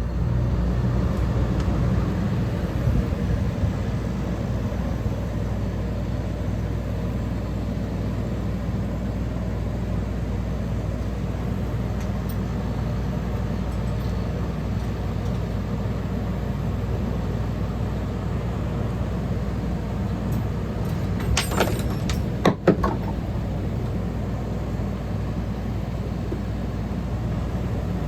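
1977 General Electric Superthrust 10,500 BTU window air conditioner with a rotary compressor running: a steady low hum under even fan and air noise. A few sharp clicks come about three quarters of the way through.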